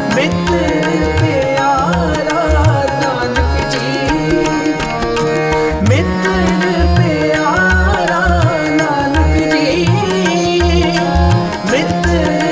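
Instrumental interlude of a Sikh devotional song (shabad): a steady low drum beat under a gliding, ornamented melody line and held drone-like tones.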